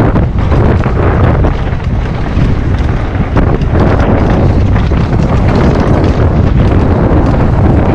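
Loud wind buffeting on an action camera's microphone as a mountain bike descends a trail at speed, with the rumble of tyres over the ground and frequent knocks and rattles from the bike.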